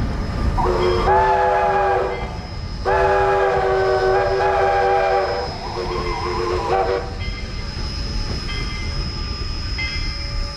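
Steam locomotive whistle sounding three chime-like blasts, two long and one shorter, the middle one longest and loudest, over a steady rumble.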